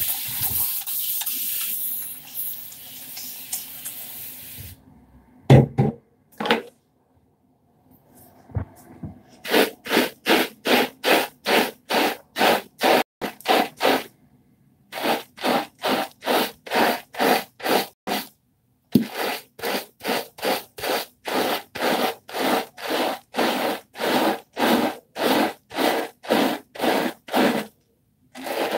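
A spray bottle hissing out a steady mist of water onto the head for about four seconds, then a handheld scalp brush scrubbing through shampoo-lathered hair in quick regular strokes, about two a second, in three runs with short breaks between.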